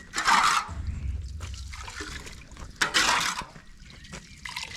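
Water trickling and splashing in a flooded pool excavation, with two louder splashing bursts, one just after the start and one about three seconds in.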